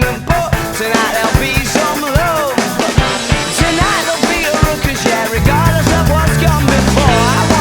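Background music with a steady drum beat and a gliding melody line; a heavy low bass part comes in about five seconds in.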